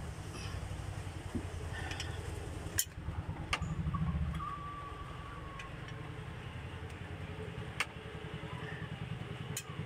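A running engine idles steadily underneath, with a few sharp metallic clicks from the wrench and socket as the Mitsubishi 4D56 cylinder head bolts are tightened.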